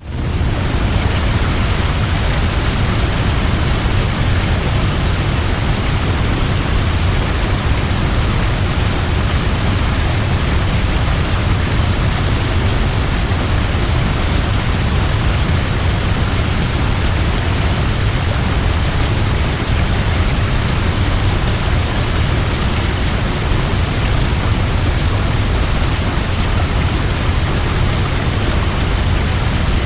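Large waterfall crashing, a steady dense roar of falling water that fades in over the first half second and then holds unchanged, heaviest in the low rumble.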